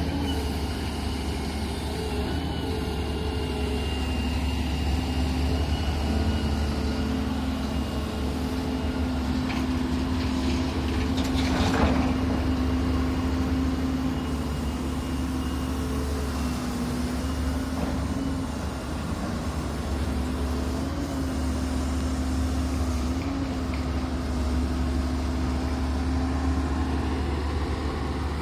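Doosan excavator's diesel engine running steadily, its note shifting slightly up and down as it works, with a short louder rush about twelve seconds in.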